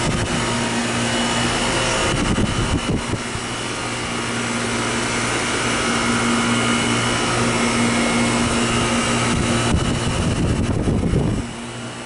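Goodman outdoor central air-conditioner condenser units running: a steady compressor hum under the rushing air of the condenser fans. Brief low rumbles come about two seconds in and again near the end, after which the sound drops a little in level.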